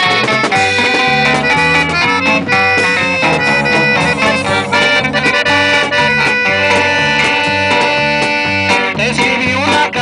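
Live norteño band music: twelve-string bajo sextos strummed over electric bass and drums, with a melody of long held notes.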